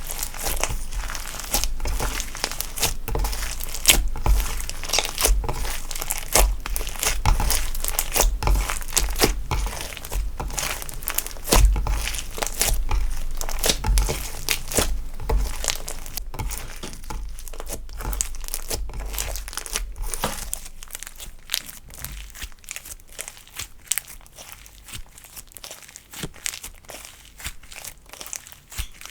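Slime with eyeshadow and glitter mixed in being worked by hand, giving a dense run of sticky crackles and small pops. It grows quieter after about twenty seconds.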